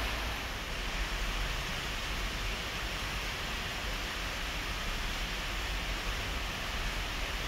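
Steady rushing noise with a low, unsteady rumble underneath and no distinct events.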